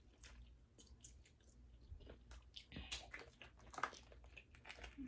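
Faint close-up chewing and biting: wet mouth smacks and small clicks while eating boiled seafood.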